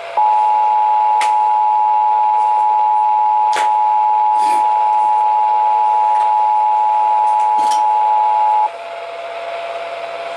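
Emergency Alert System two-tone attention signal over a radio broadcast: a steady dual tone that runs for about eight and a half seconds and then cuts off suddenly, with a few faint static crackles. It announces an incoming tornado warning.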